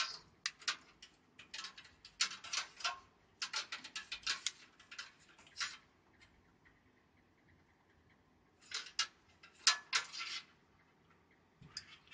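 Quick runs of small clicks and scratches, in several bursts with a quiet pause in the middle: plastic SATA cable connectors and leads being handled and fitted inside a desktop PC case.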